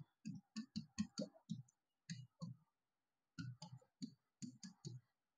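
Marker pen writing on a whiteboard: a string of short, faint taps and scratches as the letters are stroked out, in two runs with a pause of about a second in the middle.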